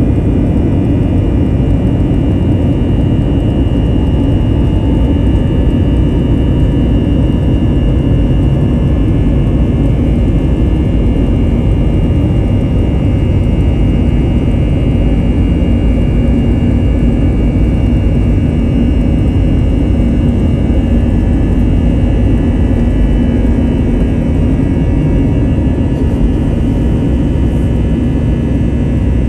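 An Airbus A321-200's twin jet engines at takeoff thrust during the takeoff roll, heard from inside the cabin: a loud steady roar with a thin high whine over it.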